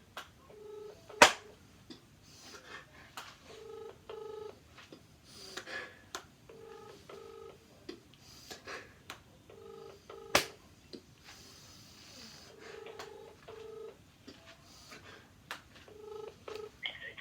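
Telephone ringback tone: a low steady tone in short double rings repeating every few seconds, the line ringing while the call waits to be answered. A few sharp clicks come over it, the loudest about a second in and again about ten seconds in.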